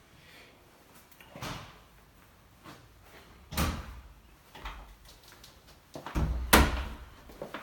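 Interior doors or closet doors being opened and shut: a few separate knocks and thuds, the loudest about six and a half seconds in.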